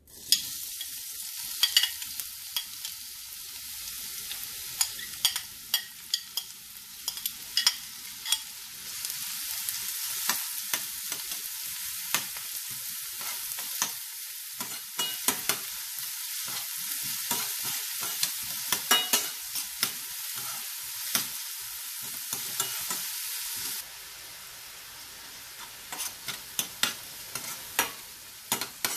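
Chopped shallots sizzling in hot coconut oil in a pan, starting suddenly as they go in, while a spatula is stirred through them with frequent sharp clicks and scrapes against the pan. The sizzle becomes quieter about 24 seconds in.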